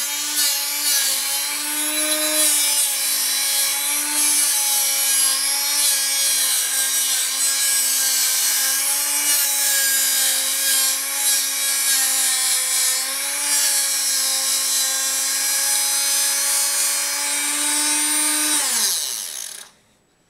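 Rotary tool spinning a thin cut-off wheel and cutting through a brass tube that is turned by hand against the disc. A steady high motor whine with a grinding hiss, its pitch wavering slightly as the cut loads it. Near the end the tool is switched off and winds down, its pitch falling.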